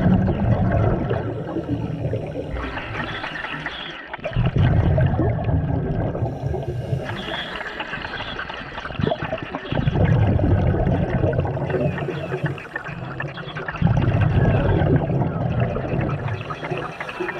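Scuba diver breathing through a regulator underwater: four gurgling rushes of exhaled bubbles, each about two seconds long and coming every four to five seconds, with a fainter hiss of inhaling between them.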